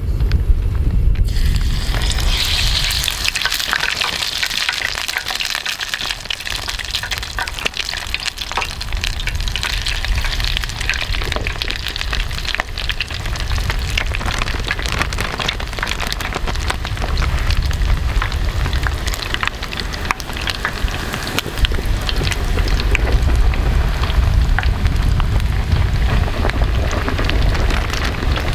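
Oil in a tempura pot sizzling and crackling as food deep-fries, starting suddenly about a second in and keeping up a dense, fine crackle.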